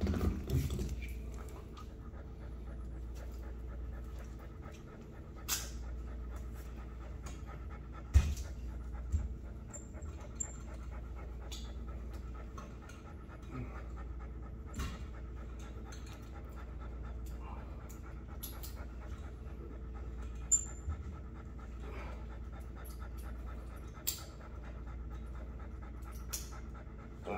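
A dog panting steadily over a low hum, with a few sharp clicks and knocks scattered through it, the loudest about eight seconds in.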